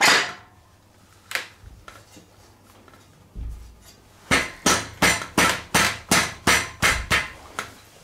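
A Shimano 105 crankset being worked home into the bottom bracket: a couple of single clicks and a dull thump, then a quick run of about ten sharp knocks at about three a second, like a tool tapping the crank into place.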